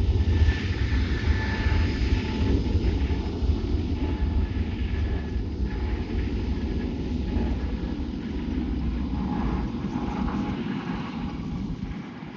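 Jet airliner's engines: a deep rumble with a steady whine above it, fading gradually as the aircraft moves away. The deep rumble drops out near the end.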